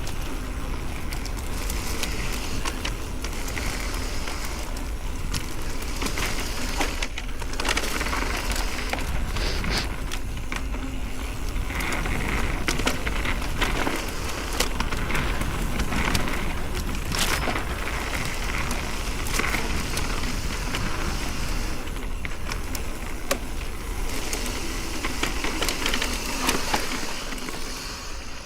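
Ibis Oso e-mountain bike riding over a rough dirt trail: continuous tyre crunch on dirt and gravel, with many small clicks and rattles from the bike and a low rumble.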